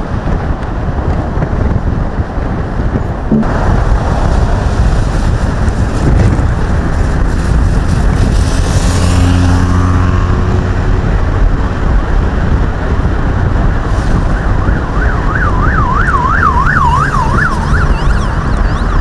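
Loud, steady road noise of a motorcade of SUVs driving past. About fifteen seconds in, a siren yelps in fast rising and falling sweeps for about three seconds.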